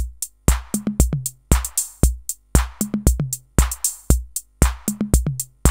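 Electronic drum-machine loop played through a DIY VCA-based audio compressor with its snappy attack mode switched on. A low kick drum lands about twice a second, with short pitched low notes and crisp high percussion hits in between.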